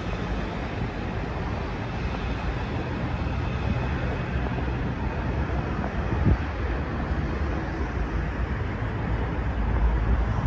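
Steady low rumble of an ICE high-speed train running away along the tracks, mixed with wind on the microphone. A single knock sounds about six seconds in.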